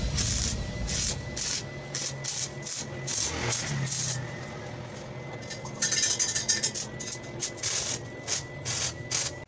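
Electric arc welding on a steel square-tube frame: the arc crackles and spits in two short runs with a brief pause between them, as joints are tack-welded.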